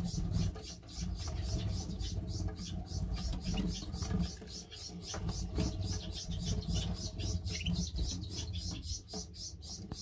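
Canaries in a flight cage giving a few short, faint cheeps over a steady, regular high-pitched pulsing hiss, about four or five pulses a second, and a low rumble.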